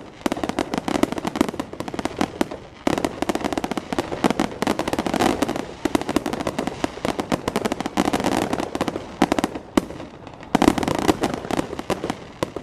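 Fireworks going off in a dense, rapid barrage of sharp bangs and cracks, many a second, with two brief lulls, about a quarter of the way in and near the end.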